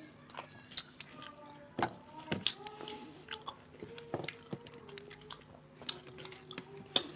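Close-up eating sounds of two people eating rice by hand from steel plates: chewing and mouth sounds, with fingers working the food against the plates. Many irregular small clicks run through it.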